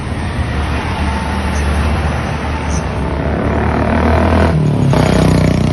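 Road noise from a moving vehicle in traffic: a steady low rumble of engine and tyres under a rushing noise. About four and a half seconds in, the rumble shifts and gets louder.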